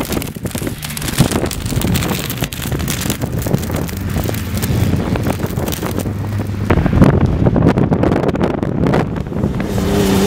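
Off-road race truck engines running hard through loose sand, half buried under heavy wind buffeting on the microphone. Near the end a closer engine comes in with a clear, steady note.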